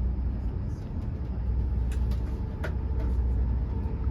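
Steady low rumble of a moving vehicle, with a faint steady whine and two light clicks near the middle.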